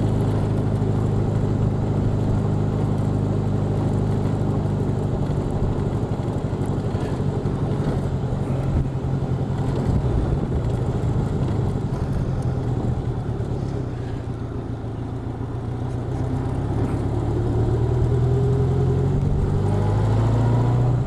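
Honda Goldwing motorcycle engine running at a steady cruise, with road and wind noise. About two-thirds through it eases off briefly, then picks up again with a rising pitch to the end.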